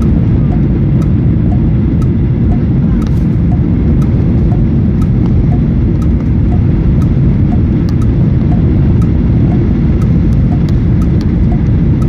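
Steady, loud cabin rumble inside a Boeing 737-800 on final approach with flaps extended: the sound of its CFM56 engines and the airflow over the fuselage, heard near the wing.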